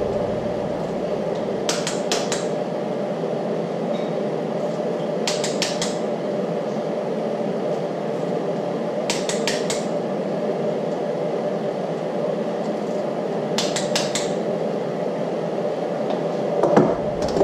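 Click-type torque wrench on the camshaft thrust plate bolts of a Gen 3 HEMI block, re-checked at 115 inch-pounds: four short runs of sharp metallic clicks, about four seconds apart, one per bolt. A steady hum runs underneath.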